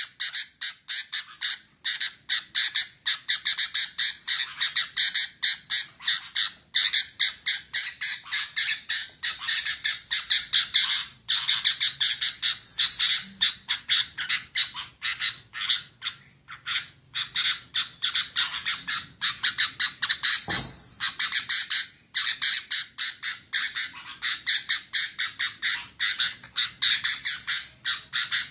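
Female sooty-headed bulbul (kutilang) calling: a continuous rapid series of short, harsh chattering notes, several a second.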